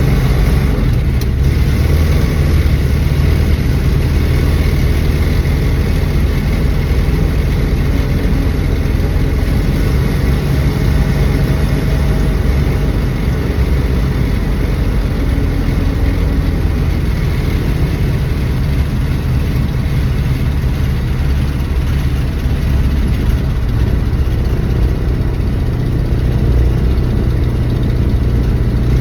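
A 1974 Dodge Dart's engine running steadily with an even, low drone and no change in pitch.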